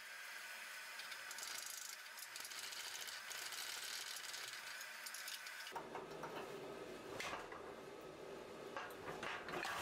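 Hydraulic forging press running while its ram drives a punch into a hot steel hatchet blank. About six seconds in, irregular metal clanks and rattles start as tongs work the hot piece in the punching jig.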